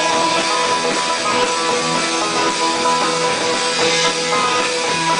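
Live band playing an instrumental stretch of a bluegrass-style rock number: strummed acoustic and electric guitars over drums.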